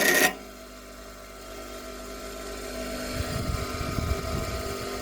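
Power grinder cutting into a stainless steel nut, with a loud high whine that stops abruptly about a third of a second in. The grinder's motor then keeps running free with a steady hum, and some low knocking of handling sounds a few seconds in.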